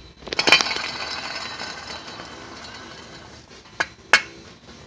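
SRT-4 wheel hub bearing spun by hand on the removed knuckle, grinding metal on metal with a ringing rattle that fades over about three seconds as the hub coasts down: the sound of a worn, failing hub bearing. Two sharp clicks come near the end.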